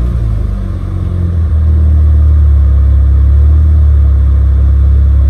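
Supercharged 2.0-litre four-cylinder LSJ engine of a Chevy Cobalt SS running on its first start after sitting for two years. It dips briefly, then about a second and a half in picks up to a higher, steady speed and holds there.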